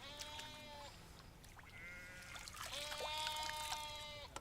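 Sheep bleating: three drawn-out calls, a short one at the start, a brief one in the middle and a long one of nearly two seconds in the second half.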